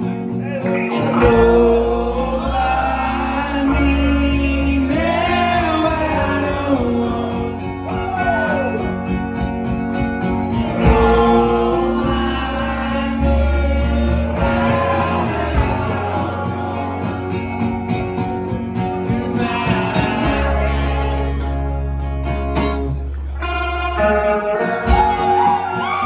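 Live band playing a slow country song: strummed acoustic guitar, bass and drums under a sliding, bending lead melody.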